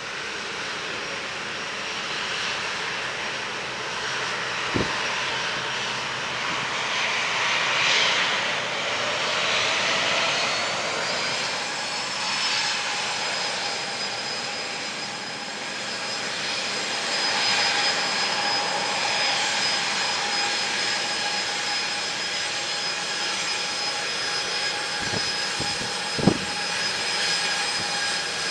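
Boeing 737-800's CFM56-7B turbofan engines running at taxi power: a steady jet whine over a rushing noise, with the whine rising slightly in pitch about twelve seconds in and then holding. A few faint clicks, the sharpest near the end.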